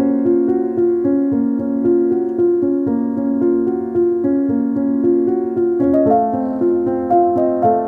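Background music: gentle keyboard or electric piano playing sustained notes in a slow, even pattern, shifting to a new chord about six seconds in.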